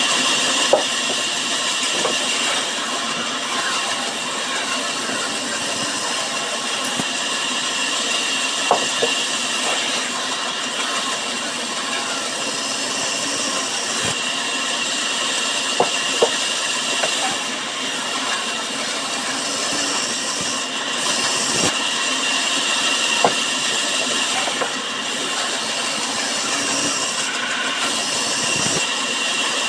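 Sawmill saw running steadily through wood: a continuous sawing noise with a steady high whine, and a few sharp knocks scattered through.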